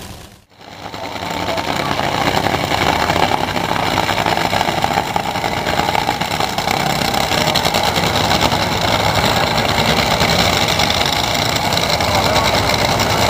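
Two Top Fuel dragsters' supercharged nitromethane V8 engines idling loudly and steadily side by side on the line, a dense rapid crackle with no revving.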